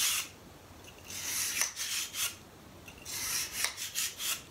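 A bronze bore brush on a cleaning rod scrubbing back and forth through a Rast & Gasser revolver's barrel: scratchy rasping strokes in about three bursts with short pauses between them. This is the intensive brushing stage that scours post-shooting fouling from the bore.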